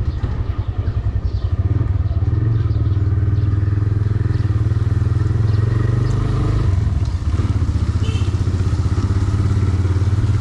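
Motorcycle engine running steadily while being ridden.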